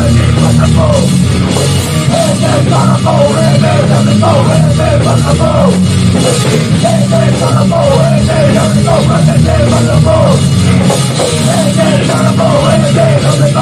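Hardcore band playing a song live in rehearsal: loud, dense full-band rock with guitars, bass and drum kit.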